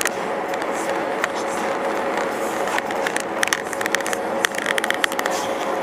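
Steady road and engine hum heard from inside a car cruising on a highway. A run of small clicks and rattles comes through for about three seconds in the second half.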